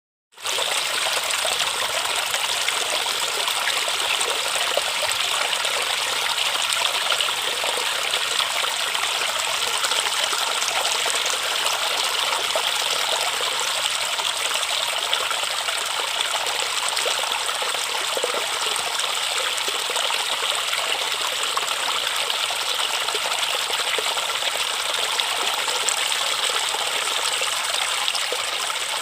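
Steady rush and trickle of a river's flowing water, an even hiss heavy in the upper range with little low rumble, starting within the first half second.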